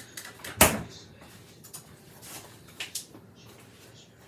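Kitchen cupboard door shutting with a sharp bang about half a second in, followed by a few lighter knocks and clicks.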